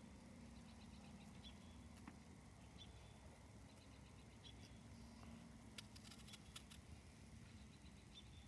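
Near silence: faint outdoor ambience with a few faint short clicks a little past the middle.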